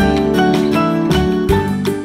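Instrumental background music with a regular beat and sustained pitched notes.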